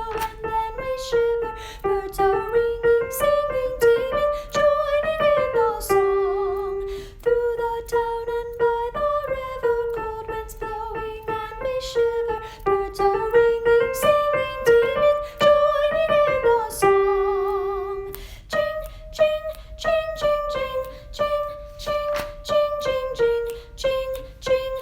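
A soprano voice singing a choral part, with piano accompaniment. The melody moves stepwise, with two long held notes sung with vibrato, one about six seconds in and another near seventeen seconds.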